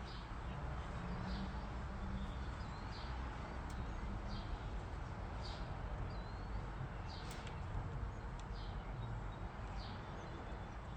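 Outdoor ambience: a steady low background rumble with a small bird chirping briefly about once a second.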